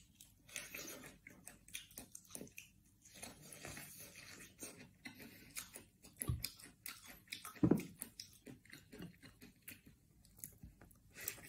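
A person biting into and chewing corn on the cob, a faint run of small irregular mouth clicks and bites.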